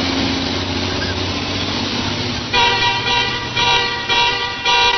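A truck engine running, then about two and a half seconds in a truck horn sounds three long blasts with only short gaps between them.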